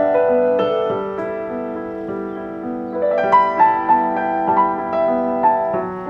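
Background piano music: a slow melody of held notes over a steady lower part, with higher notes coming in about halfway through.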